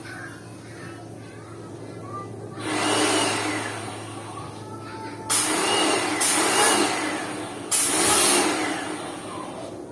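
Lakoni Laguna 70 electric pressure washer spraying water in three loud hissing bursts, about three, five and eight seconds in, with a low steady motor hum under the first half.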